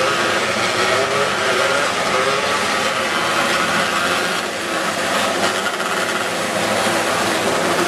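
A pack of winged sprint cars racing on a dirt oval. Several high-revving engines run together, their pitch wavering up and down as the cars go through the turns.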